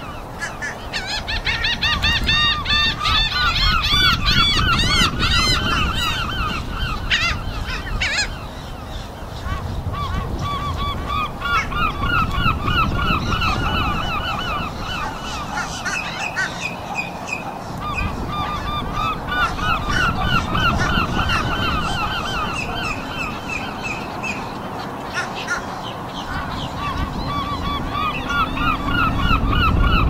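A flock of gulls calling together: many short, repeated calls overlapping in a continuous chorus, thinning briefly about eight seconds in, over a steady low rumble.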